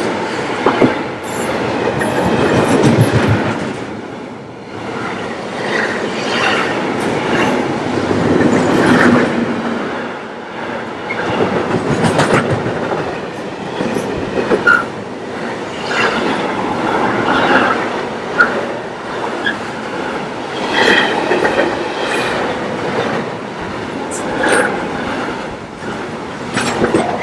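Freight train's container and trailer wagons rolling past at speed, a steady clatter of wheels on the rails that swells and fades as the wagons go by, with a few brief high wheel squeals.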